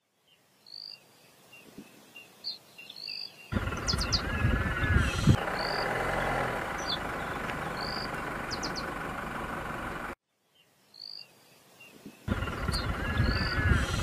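Birds chirping in short, high calls over a quiet background, broken twice by long stretches of loud, low rumbling noise. The sound drops out abruptly about ten seconds in.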